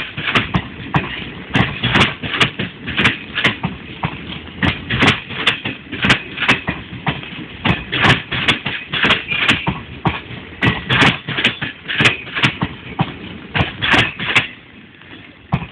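Wheels of a long passenger train clattering over rail joints as the coaches roll past: a fast, irregular run of clacks over a steady rumble, dying away near the end as the last coaches go by.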